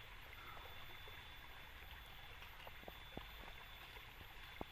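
Faint, steady flow of a small river stream, with a few soft clicks about three seconds in and one near the end.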